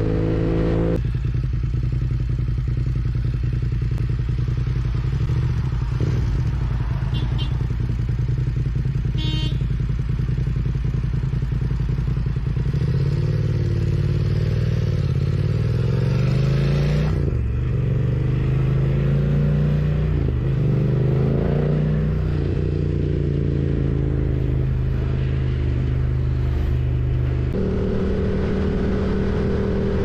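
BMW F900R's parallel-twin engine running under way: a steady note at first, then rising and falling in pitch through the middle as the bike speeds up and slows, settling back to a steady note near the end.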